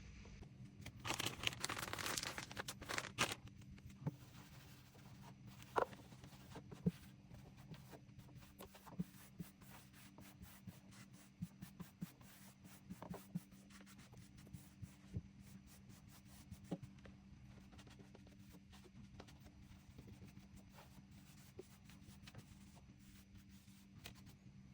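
Packaging rustling and tearing for a couple of seconds, then scattered light clicks and taps of small items being handled and set down, over a faint steady hum.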